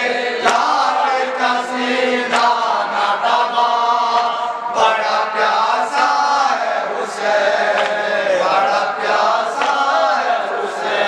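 A noha, a Shia lament for Husain, chanted by a male reciter with a group of men's voices joining. Sharp slaps land about every two seconds in time with it: mourners beating their chests with open hands (matam).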